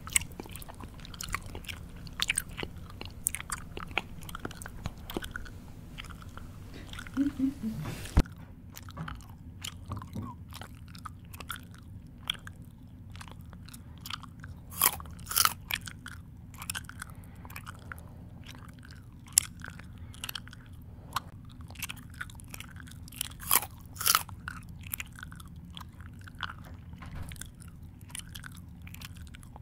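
A person chewing food close to the microphone, open-mouthed, with irregular crunching and smacking clicks that come in denser, louder clusters now and then.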